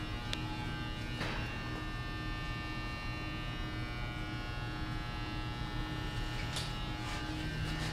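Steady electrical hum and buzz, with a few faint clicks.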